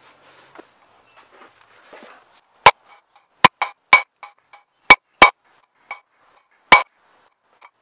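Mallet blows on a metal driver seated in the bore of a Ford 8.8-inch differential's aluminium housing, driving a press-fit part home. There are about half a dozen sharp hits with lighter taps between them, each leaving a short metallic ring, starting a little over two seconds in. Before the first blow there are faint clinks of parts being handled.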